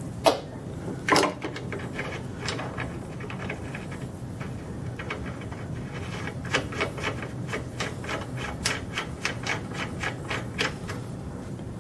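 Large steel rear axle nut being threaded by hand onto a motorcycle's rear axle against the brake backing plate: two knocks at the start as the nut is picked up, then a fast run of light clicks, about four a second, as it is spun along the threads.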